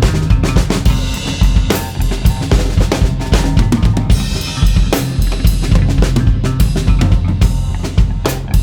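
Ludwig Vistalite acrylic drum kit played continuously: a busy run of bass drum and snare hits, with a brief ringing wash of cymbal about four seconds in.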